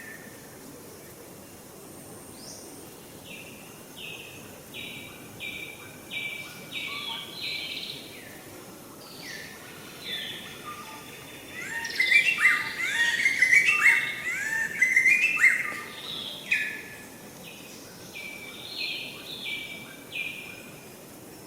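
Birds calling outdoors: runs of short, evenly repeated chirping notes. A louder, busier cluster of overlapping calls comes in the middle, then another run of repeated notes near the end.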